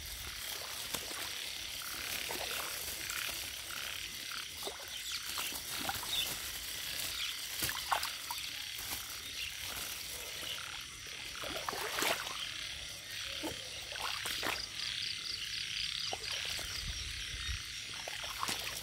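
Chorus of many frogs calling together, with scattered short clicks over a steady high hiss.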